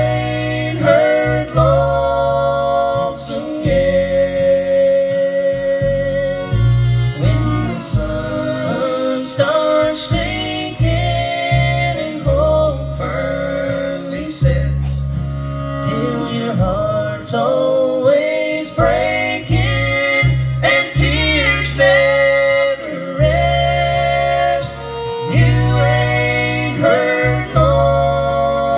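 Live bluegrass band playing, two fiddles to the fore over acoustic guitar, mandolin and bass, heard through the stage's sound system.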